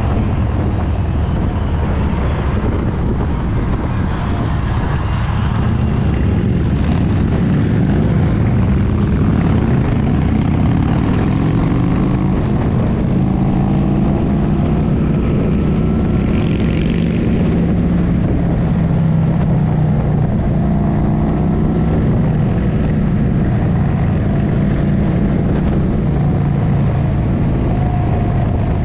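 Motorcycle engines of a group ride running at steady cruising speed, the rider's own bike closest; the engine note grows slightly louder about six seconds in.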